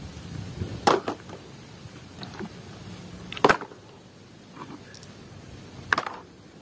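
Plastic toy vehicles being picked up and put into a plastic basket one at a time: three sharp clatters about two and a half seconds apart, with light handling noise between.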